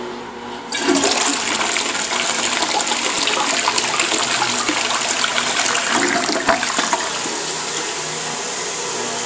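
Crane Atlas toilet flushing: a sudden loud rush of water starts about a second in as the bowl swirls and drains, easing to a steadier rush near the end.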